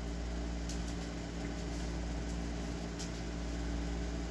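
Steady low mechanical hum with several faint steady tones in it, with a few faint rustles as the crocheted blanket is handled.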